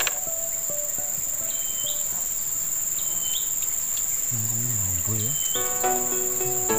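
Steady high-pitched drone of an insect chorus in riverside forest, with a short repeated call about every second and a half. Background music with held notes comes in about a second before the end.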